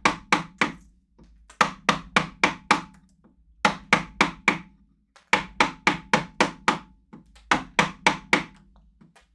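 A wood-carving chisel being struck in quick runs of about five to seven sharp blows, about five or six a second, with short pauses between runs, as it is driven into hard wood.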